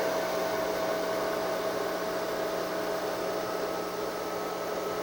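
Steady whir of a running desktop PC's cooling fans and drive, with a constant hum of several tones beneath.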